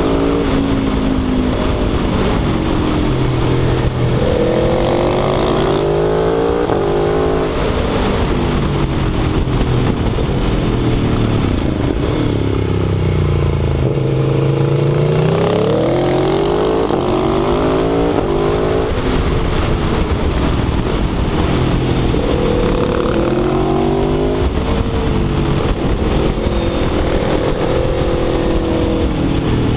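Aprilia Tuono V4 1100 RR's V4 engine under hard riding, its pitch climbing under acceleration and dropping back on the throttle again and again through a run of bends. Wind rush on the microphone runs underneath.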